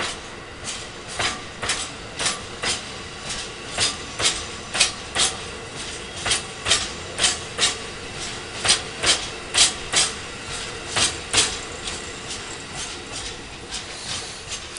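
Wheels of a long freight train of hopper wagons clacking over rail joints as it rolls slowly past, with sharp, irregular clacks a few times a second over a steady rolling rumble. The clacks are loudest about eight to eleven seconds in.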